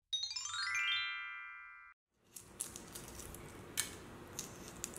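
A short musical sting: a quick rising run of bright notes that settles into a held chord and fades. After a brief gap comes the faint crackle of a cooked egg's shell being peeled by hand, a hiss with scattered sharp clicks as shell pieces break away.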